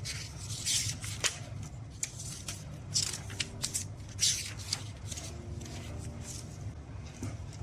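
Paper pages of a handmade junk journal being flipped and handled: an irregular run of quick papery swishes and rustles with a few sharp flicks.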